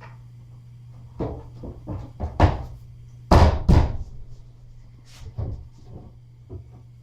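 A series of knocks and thuds as bed frame crosspieces are tapped home onto their fiberglass connectors. The loudest are two heavy thuds in quick succession about three and a half seconds in, with lighter taps before and after.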